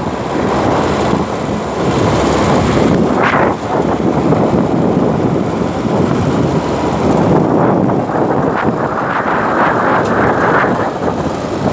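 Wind buffeting the phone's microphone in the open cargo bed of a moving pickup truck, over the truck's running and road noise; the rushing swells and dips.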